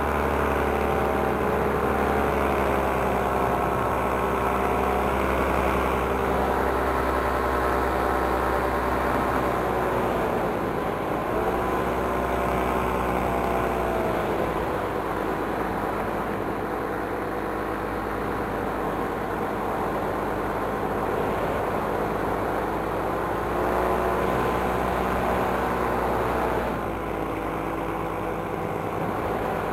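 Paramotor engine running in flight, its pitch dipping and rising a few times as the engine speed changes.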